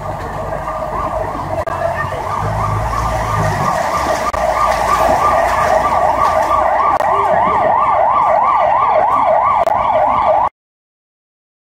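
Emergency vehicle siren in a fast up-and-down yelp that grows louder, its sweeps becoming steady and rapid at about three or four a second, then cutting off suddenly near the end. A low rumble runs under it for the first few seconds.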